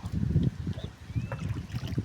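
Water sloshing against a kayak, with irregular low rumbling from wind on the microphone. A faint short whistle rises and falls about a second in.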